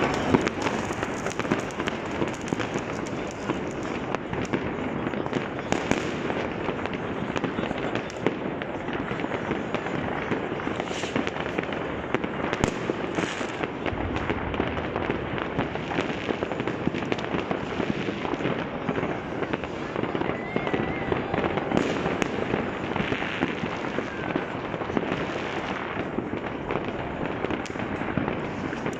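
Many fireworks going off at once across a wide area: a dense, continuous run of bangs and crackles at an even level, with no single burst standing out.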